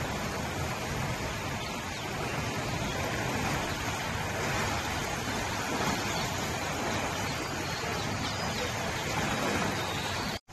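Steady rushing of a river in flood, its fast water churning and eddying.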